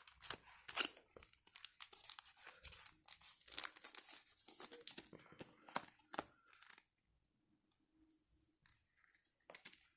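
Foil wrapper of a Pokémon TCG booster pack being torn open and crinkled: a run of quick ripping and rustling sounds that stops about seven seconds in.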